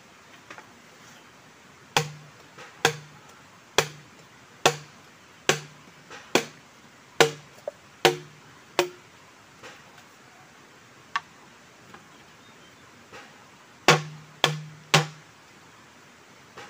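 Machete chopping at a green bamboo pole: about nine sharp hollow knocks roughly a second apart, then a pause and three quicker strikes near the end.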